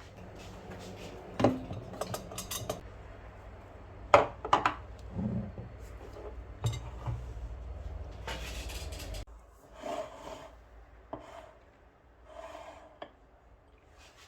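Kitchen utensils and dishes knocking, clinking and scraping during juice preparation, with the loudest knocks a second and a half and four seconds in. A low hum under them cuts off suddenly about nine seconds in.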